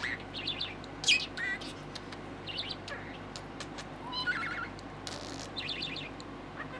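Budgerigar chattering and warbling: a stream of short high chirps, trills and clicks with a few gliding notes, the loudest a sharp chirp about a second in.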